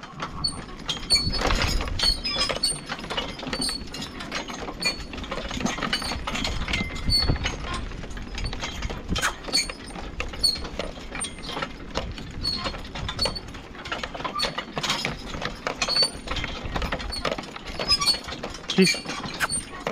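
Metal harness and hitch gear clinking and rattling continuously as a team of two draft horses walks, pulling logs, with many irregular clicks and short high metallic pings.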